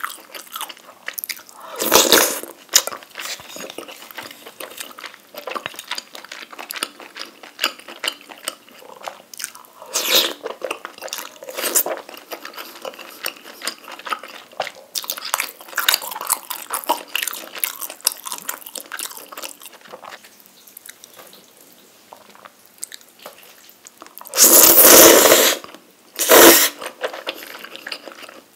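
Close-up eating sounds of rabokki: wet chewing with many small clicks. A few louder moments stand out, the longest and loudest lasting over a second near the end.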